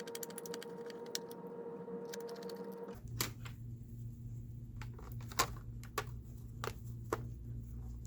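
Light clicks and taps of small hard laptop parts being handled, over a steady hum. About three seconds in the hum changes to a lower one, and several sharper single clicks follow.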